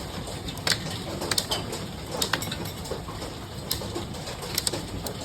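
Hailstones striking hard surfaces: irregular sharp clicks and knocks several times a second over a steady rush of falling hail.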